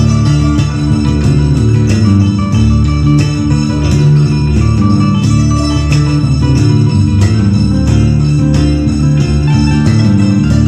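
Live instrumental band playing: an electric bass line under a steady stream of quick plucked notes from acoustic guitar, with the bright ringing strings of santur and kora.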